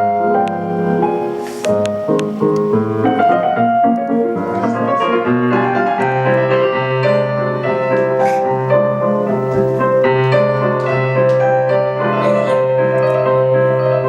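Piano music: a melody over changing chords, with a held low bass from about six seconds in.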